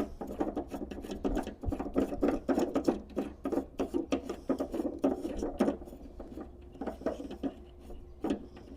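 Rapid, irregular clicking and rattling from a MIG welder's wire-spool hub as its retaining nut is unscrewed and removed. The clicks are dense for about the first six seconds, then thin out to a few scattered ones.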